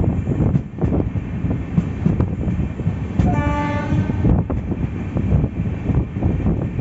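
A moving train heard from on board, with steady rumble and rattle throughout. A train horn sounds once, a single steady note of about a second, a little past halfway.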